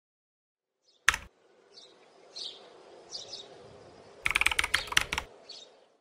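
A single sharp click about a second in, a few faint high chirps, then a quick run of sharp clicks like keys being typed, a little over four seconds in.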